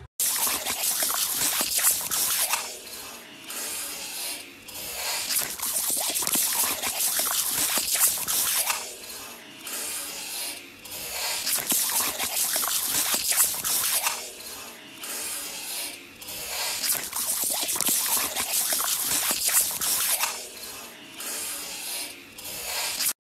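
Garden hose spray nozzle jetting water into a Labrador retriever's mouth as it bites at the stream: a loud spattering hiss that breaks off briefly several times.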